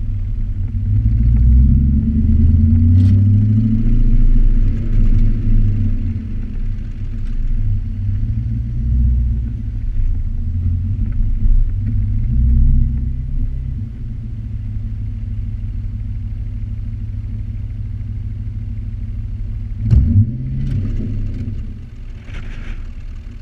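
Audi RS4 exhaust, heard from right beside the tailpipe, with the pre-cats and resonator deleted, as the car drives: a deep exhaust note swelling and falling as the engine pulls through the first half, then running more steadily and quietly. A sharp knock about 20 seconds in, and the sound drops off near the end.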